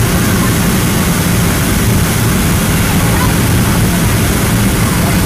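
Steady cabin noise inside a passenger aircraft on its landing approach: engine drone and rushing airflow, loud and even throughout.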